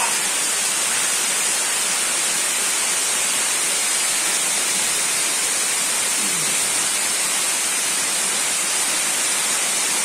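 Waterfall: water pouring steadily over rock ledges, an even, unbroken rushing noise.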